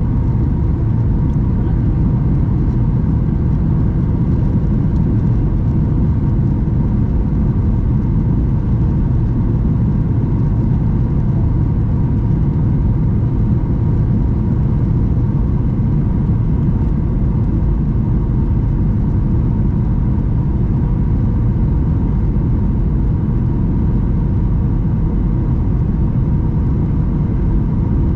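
Steady cabin noise inside a Boeing 737-800 in flight: the low rush of airflow and the hum of its CFM56-7B turbofans, with a faint steady whine running through it.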